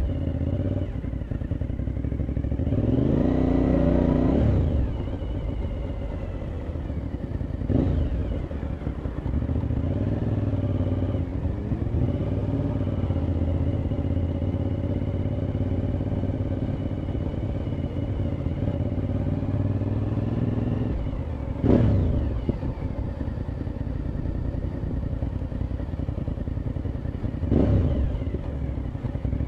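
Motorcycle engine running steadily under way. About three seconds in it revs up, its pitch rising and then falling back, and a few short, sudden louder bursts come later.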